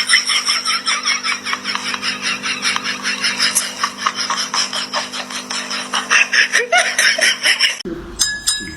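Laughter in a long run of quick breathy giggles, several a second, over a steady low hum, breaking off near the end.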